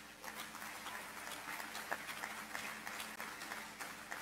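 Audience applauding: many hand claps that start suddenly together and carry on steadily, faint.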